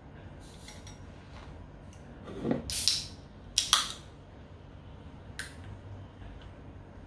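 A drink can's pull tab cracked open: a sharp double click with a short fizzy hiss, after a brief clatter of the can and utensils against the bowls on the table.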